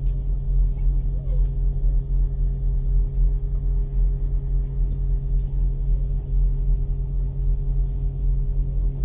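Diesel train engine idling, heard from inside the carriage: a steady low rumble with a constant hum.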